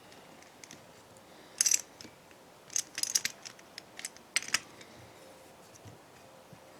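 Sharp metallic clicks and clinks from hand tools and small metal parts being handled during motorcycle engine disassembly. They come singly about a second and a half in, then in a quick cluster around three seconds, and a few more near four and a half seconds.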